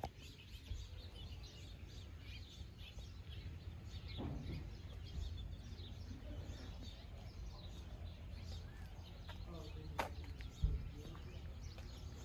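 Small birds chirping over a steady low rumble. A sharp click comes about ten seconds in, with a low thump just after.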